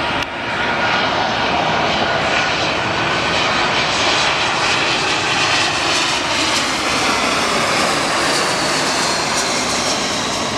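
Turbofan engines of a twin-engine narrowbody jet airliner passing low overhead on landing approach with its gear down: a loud, steady rushing noise with a whining tone running through it. It grows louder about half a second in.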